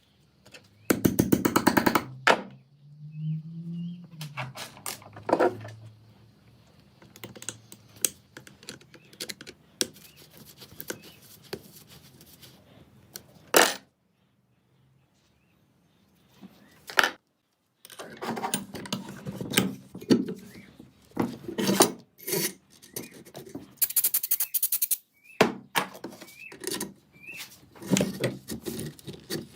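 Small metal gun parts being handled and fitted, making irregular sharp clicks, knocks and jangling rattles, with a dense rapid rattle about a second in and a short pause just past the middle.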